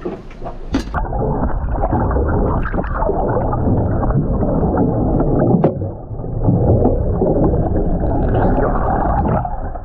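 Muffled, steady rush of wind and water on a small boat in rough water, with a few sharp knocks.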